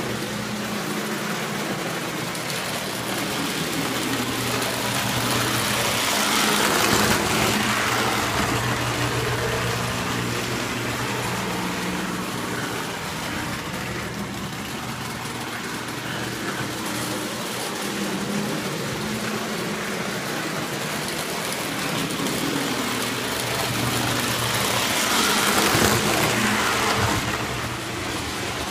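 An electric O-gauge model train running on the layout's track, a steady motor hum with rolling wheel noise that grows louder twice, a few seconds in and again near the end, as the train comes past.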